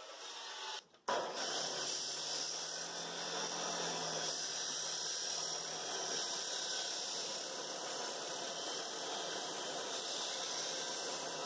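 Abrasive chop saw's wheel grinding steadily through a wooden 2x4 with nails in it, burning the wood. It follows a sudden break about a second in, where the carbide cold-cut saw's cut ends.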